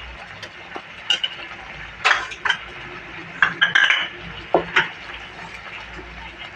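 Spinach soup bubbling at the boil in a metal pan, with a utensil knocking and clinking against the pan several times. Near the end a spatula stirs it.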